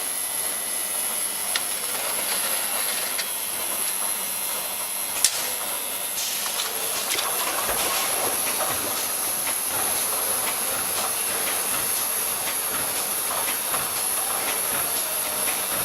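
Vial tray washing machine running: a steady hiss with a thin, high, constant whine and scattered light clicks, one sharper click about five seconds in.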